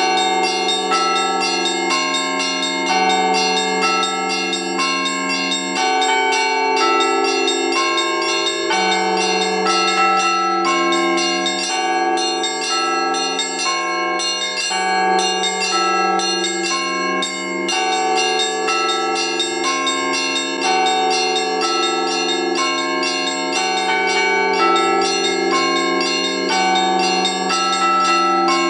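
Russian Orthodox church bells rung by one ringer in the Rostov tradition: small treble bells struck in a fast, dense rhythmic pattern over deeper bells whose low tones ring on and shift every few seconds.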